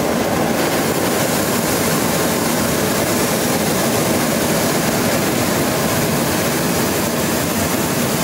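Hot-air balloon's propane burner firing in one long, loud, steady burn, heating the envelope for lift-off.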